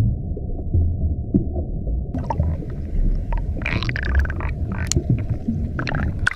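Muffled underwater water noise heard through a submerged camera: a low rumble, joined about two seconds in by crackling clicks and bursts of bubbling and water movement.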